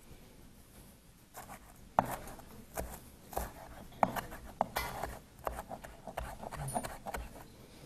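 Santoku knife chopping Italian parsley on a wooden cutting board: irregular knocks of the blade on the board, a few a second, beginning about a second and a half in.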